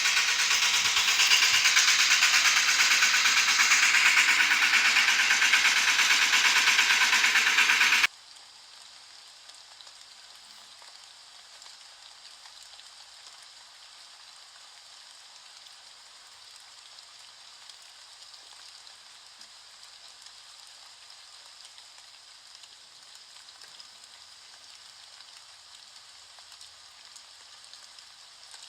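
Rain falling, a loud steady hiss that cuts off abruptly about eight seconds in, leaving a much fainter steady rain hiss.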